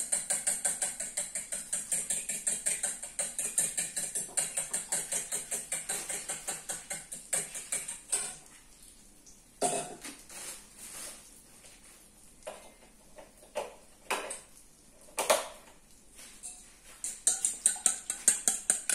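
A utensil beating egg in a stainless steel bowl: rapid, even metallic clicking for about eight seconds, then scattered taps and scrapes against the bowl, with the rapid beating starting again near the end.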